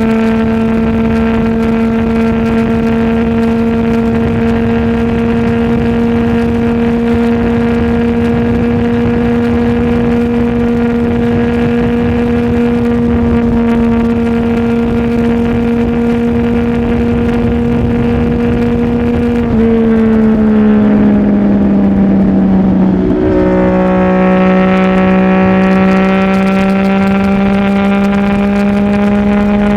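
CFMOTO 675NK's three-cylinder engine through a titanium full-system exhaust, holding a steady note for about twenty seconds. The pitch then drops over a few seconds, a little louder, and slowly climbs again near the end.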